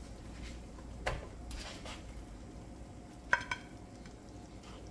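Light clinks of a cooking utensil against metal cookware: a soft tap about a second in and a sharper double clink with a brief ring past the middle, over a low steady kitchen hiss.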